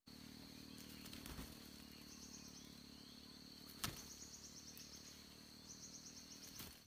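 Faint insect chirping: a steady high trill throughout, with three short bouts of faster pulsed chirps, and one sharp click about four seconds in.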